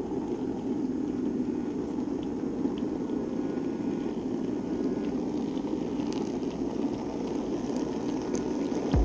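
N-scale model trains running on the layout, heard close up through the camera sitting on it: a steady low whirring hum, with a low thump at the very end.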